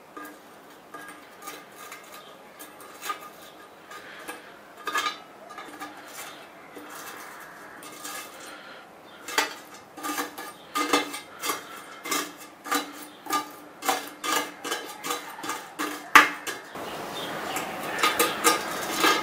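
A flat metal blade scraping and tapping at charred, melted plastic residue on the bottom of an upturned metal pot: scattered clicks and scratches that come thicker and louder from about halfway. Near the end the brittle char is crumbled and picked at by hand with a crackling rustle.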